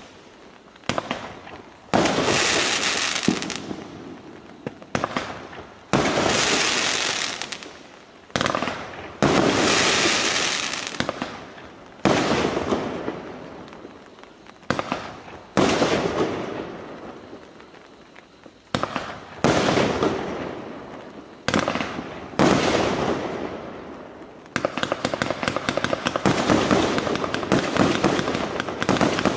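Consumer 42-shot fireworks cake firing: a new shot bursts every two to three seconds, each fading out over a couple of seconds. Near the end the shots come in a rapid, continuous run.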